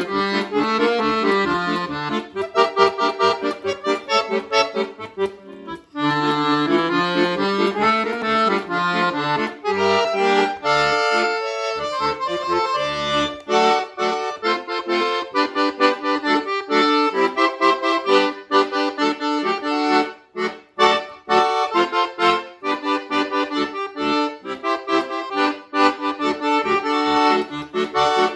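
Solo piano accordion, a Bellicordion, playing a lively piece: right-hand melody over a fast, steady pulse of left-hand bass and chords, with brief breaks about six seconds in and again around twenty seconds.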